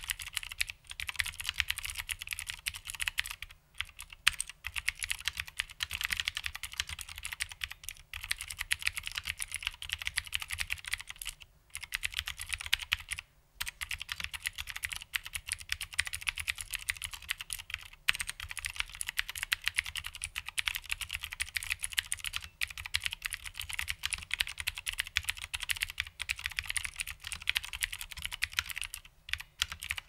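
Fast, continuous typing on an HMC C386SX mechanical keyboard with vintage Cherry MX Blue switches, each keystroke a sharp click, under original Cherry doubleshot keycaps. The rapid clatter breaks off for a moment a few times.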